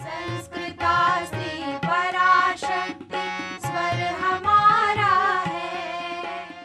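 Background music: a melody with wavering, ornamented pitch over regular drum strokes. It stops abruptly right at the end.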